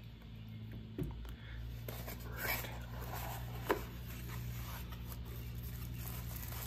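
Hands opening a small cardboard box and handling the bubble-wrapped contents: soft scraping and rustling, with a few light taps about one, two and a half and nearly four seconds in, over a low steady hum.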